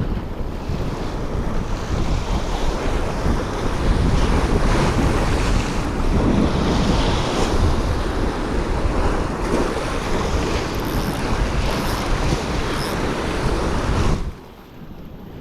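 Sea waves washing against shoreline rocks, with wind buffeting the microphone; the noise drops off suddenly near the end.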